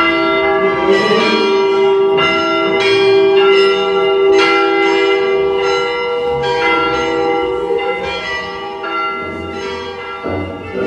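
Church bells ringing: several bells struck in turn about once or twice a second, each ringing on under the next. The peal starts suddenly.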